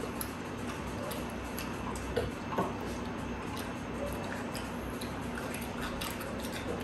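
Chewing and crunching of crispy fried pork, heard as scattered small clicks and crackles over a steady low room hum.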